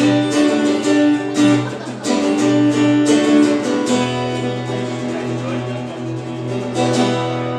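Acoustic guitar strumming chords through the last bars of a song, the chord changing every couple of seconds.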